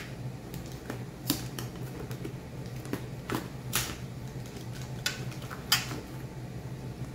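Spice jars being handled, giving irregular sharp clicks and light knocks about ten times over a steady low hum.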